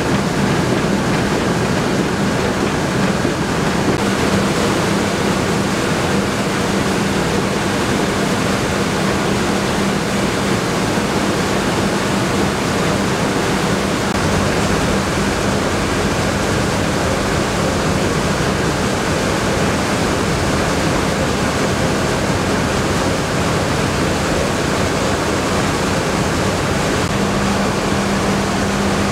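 Rice mill machinery running: a loud, steady mechanical rush with a constant low hum underneath.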